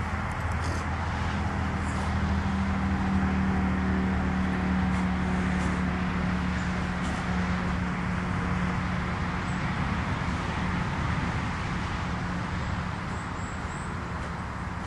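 Steady low engine hum, like a motor vehicle running nearby. It grows slightly louder a couple of seconds in and eases off toward the end.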